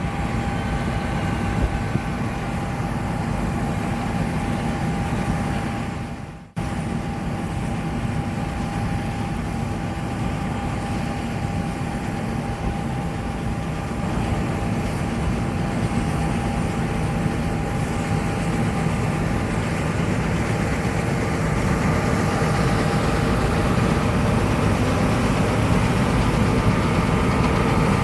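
John Deere S780 combine harvester running steadily while harvesting wheat: a dense engine drone with a thin, steady whine above it. The sound cuts out briefly about six seconds in and grows slightly louder over the last few seconds.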